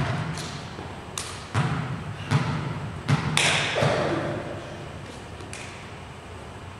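Volleyball play echoing in a gym hall: a string of irregular thuds as the ball is hit and lands. The loudest comes a little past three seconds in, and it is quieter for the last couple of seconds.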